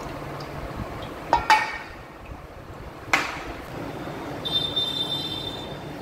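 Two sharp metallic clanks with a short ring, about a second and a half and three seconds in, from metal tools and parts being handled during a motorcycle oil change, over a steady workshop hum. A brief high squeak comes near the end.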